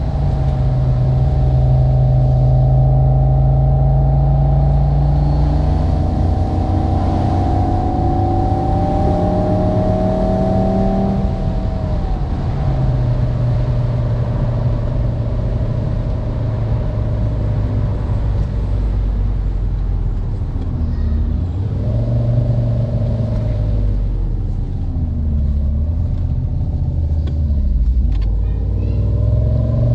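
Simulated sports-car engine and exhaust sound from a phone app, played through the car's speakers and following the real car's revs. The engine note climbs slowly for about eleven seconds, drops, holds steady, then falls and rises several times near the end.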